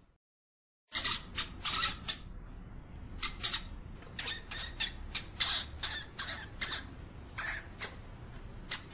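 European hamster giving a rapid, irregular series of short, harsh squeaks, starting about a second in.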